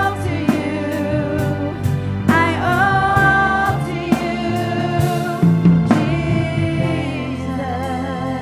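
Live worship music: a singer holding long, wavering notes over a band with bass and percussion hits.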